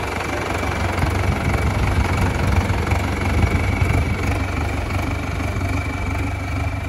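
Sonalika tractor's diesel engine running steadily as the tractor is driven around a turn, a constant low rumble with a thin steady high whine over it.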